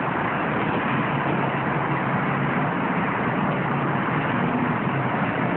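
Steady rumble of an idling vehicle or heavy traffic, with a low, even hum throughout.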